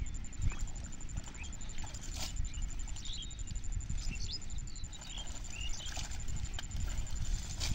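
Water and mud sloshing and water hyacinth leaves rustling as a man wades and gropes by hand through a weed-choked shallow pond, an uneven low churning with a few sharp crackles of stems. Short high chirps sound now and then over it.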